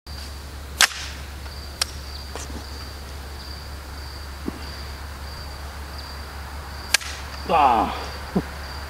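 Single shots from an AR-type carbine: sharp cracks about a second in, another a second later, and one about seven seconds in, with fainter cracks between, over a steady high thin tone. Just after the last shot comes a brief sound falling in pitch.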